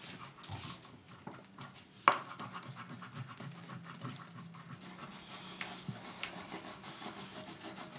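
Scratching and rubbing sounds, with one sharp click about two seconds in, followed by a run of small ticks.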